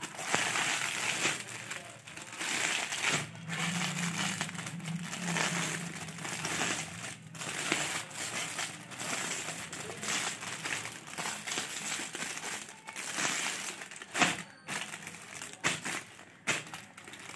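Clear plastic packaging bag crinkling and rustling as it is handled, with irregular crackles and one louder sharp crackle late on.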